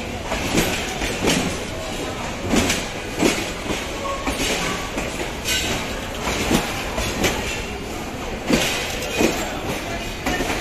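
Bangladesh Railway passenger coaches rolling past at close range, their wheels clacking over the rail joints in pairs every two to three seconds over a steady rumble.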